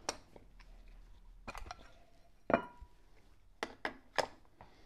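Metal clinks and knocks as a phonograph motor's spring barrel and its end cap are handled and turned over on a wooden block. The loudest knock, about halfway through, rings briefly.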